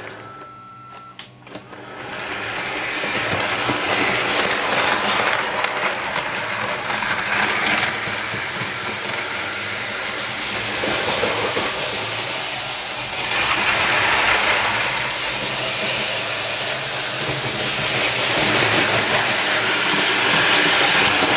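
MTH RailKing C&O Allegheny 2-6-6-6 O-gauge model steam locomotive running on three-rail track: a steady mechanical rumble of motor and wheels. It is quieter for the first two seconds, then swells louder and softer several times as the locomotive comes round the layout.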